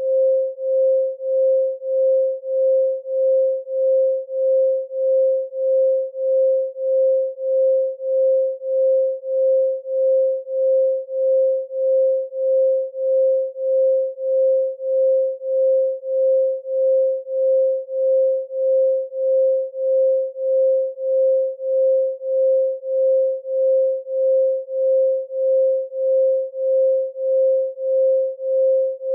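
Pure 528 Hz sine tone, steady in pitch, pulsing evenly in loudness about one and a half times a second.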